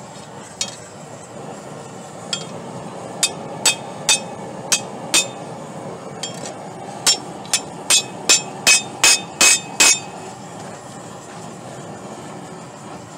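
Hand hammer striking a rebar bar on a Doyle steel anvil, each blow with a bright metallic ring. A couple of single blows come first, then a run of blows that quickens to two or three a second and stops about ten seconds in.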